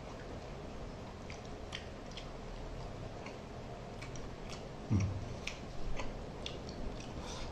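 Close-up eating sounds: scattered soft wet clicks of chewing and lip smacking, with fingers picking through curried mackerel and rice. A short low sound about five seconds in is the loudest moment.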